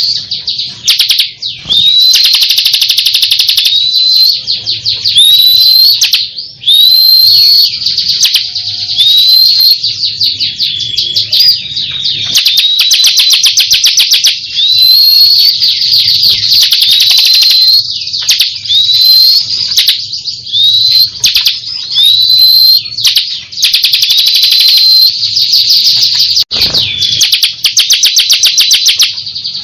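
Ciblek kristal (bar-winged prinia) singing loud and almost without pause. Fast rattling trills run under short upswept whistled notes that come every second or two. It is the continuous, vigorous 'gancor' song of a contest bird.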